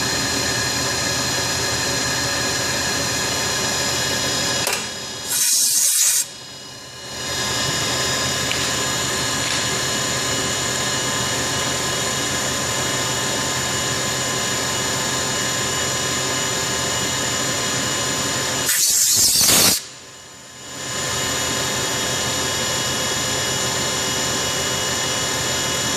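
CNC machine running steadily with a drill-like whir made of many steady tones. Twice, about five seconds in and again near nineteen seconds, a short loud hiss cuts across it, and the running sound dips for a moment afterwards.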